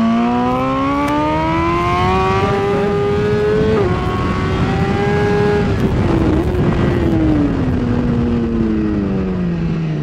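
2016 BMW S1000RR's inline-four engine pulling hard on track. Its pitch climbs steadily for about four seconds with one quick break, holds high, then falls away steadily as the bike slows for the next corner, over rushing wind noise.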